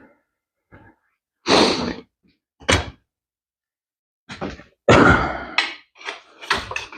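A string of separate thunks and clatters from metal parts and hand tools being handled during a motorcycle teardown. A few spaced knocks come first, the loudest about one and a half seconds in, then a busier run of clunks and rattles in the second half.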